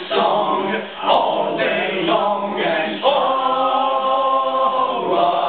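Several voices singing a cappella in a layered, chant-like round, ending in a long held note from about three seconds in.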